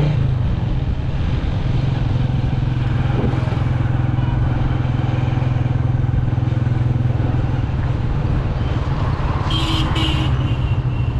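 Motorcycle engine running steadily while riding along a road, with wind and road noise.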